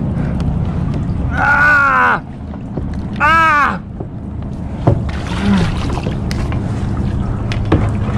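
Steady wind noise on the microphone over lapping water. Two short strained vocal grunts, each rising then falling in pitch, come about a second and a half and three and a half seconds in, followed later by a couple of sharp knocks.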